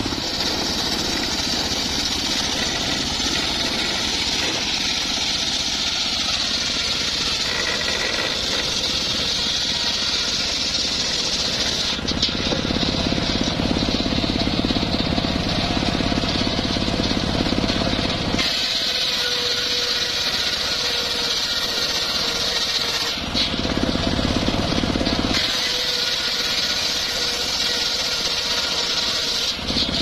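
Large circular saw blade on a homemade belt-driven sawmill ripping acacia timber into boards, a loud continuous high-pitched rasp over the machine's running drive. The sound changes several times in the second half, the low rumble dropping away and returning as cuts start and finish.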